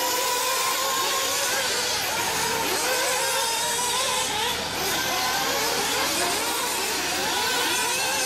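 Several 1/8-scale nitro RC buggy engines buzzing at high revs together, their pitches constantly rising and falling as the cars accelerate and brake around the track.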